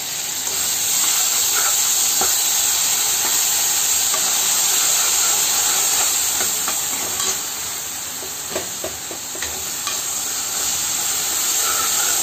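Grated tomato sizzling in hot oil in a frying pan with onions and peas. A spatula stirs and scrapes through it, making occasional light clicks. The sizzle gets louder about a second in.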